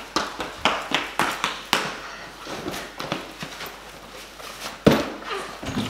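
A child's running footsteps in sneakers on a tiled floor, quick steps at about three a second, then softer. A single louder knock comes near the end.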